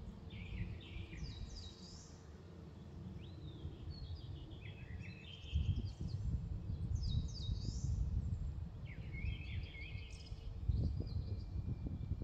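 Eurasian skylark song: a continuous run of quick high chirps, trills and rising and falling whistled notes, over a low rumble that grows louder about halfway through.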